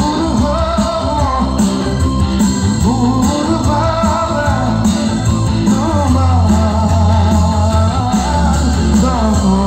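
A live band with electric guitars, bass and drums playing through a PA, with a singer's voice carrying a wavering melody over it.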